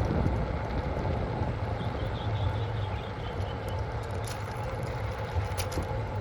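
Steady running noise of a ridden vehicle with wind rumble on a phone strapped to the rider's body, and a short run of faint high chirps about two seconds in.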